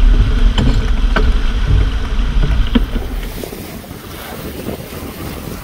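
Wind buffeting the microphone on a sailboat under way, with water rushing along the hull and a few sharp knocks. About three seconds in it drops to a softer, even hiss of open water.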